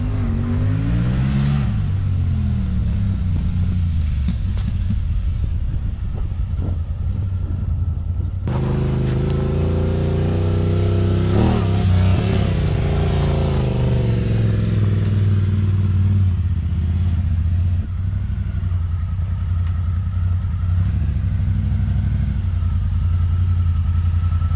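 Honda Talon 1000R side-by-side's parallel-twin engine running through an Evolution Powersports slip-on exhaust on a short rip: revs rise and fall as it drives past. The loudest pass-by comes about halfway through, and it settles to steadier, lower running near the end as it pulls in.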